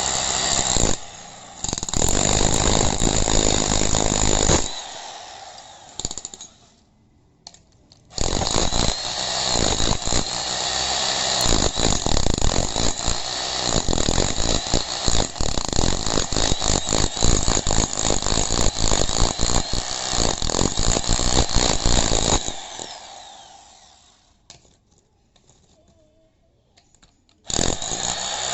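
Foster FDH-0810 6 kg electric demolition hammer chiselling into hard concrete in bursts of rapid blows. There is a short burst, then one of about three seconds, then a long run of about fourteen seconds, and it starts again near the end; the motor winds down after each stop.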